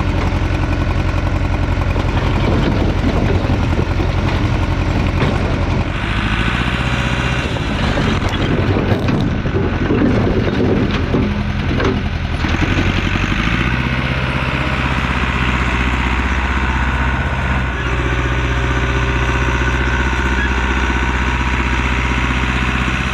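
Allis-Chalmers 655 track loader's engine running steadily, with a few seconds of irregular rattling and clatter about a third of the way in, after which the engine settles into a steady, fuller note.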